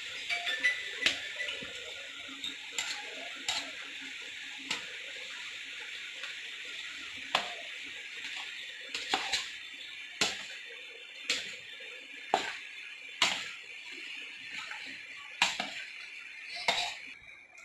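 A mixing utensil knocking and scraping against a large steel pot as cooked biryani rice is turned into the masala: irregular sharp clinks over a steady hiss that drops away near the end.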